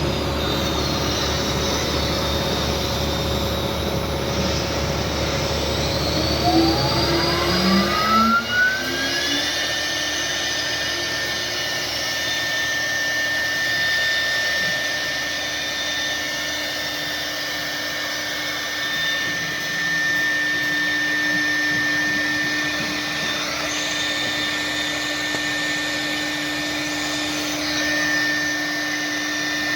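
CNC router spindle motor spinning up: a whine rises in pitch for about three seconds, starting about six seconds in, then holds at a steady high pitch over a constant rushing machine noise.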